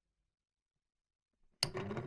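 Silence, then a hair dryer switched on near the end: a sharp click of the switch and the fan motor starting up into a loud whir, its tone rising slightly as the motor spins up.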